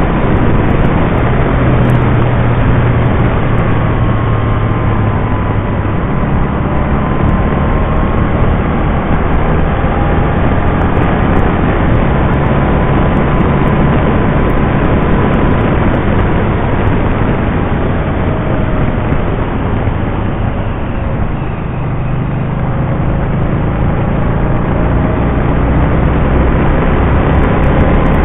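Can-Am Spyder RT three-wheeled motorcycle cruising at road speed, its engine running steadily under heavy wind and road noise. The engine note and overall level dip briefly about twenty seconds in, then pick up again.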